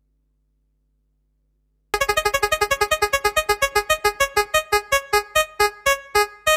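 Near silence for about two seconds, then a synthesized electric-piano jingle of short repeated notes that start fast and steadily slow down.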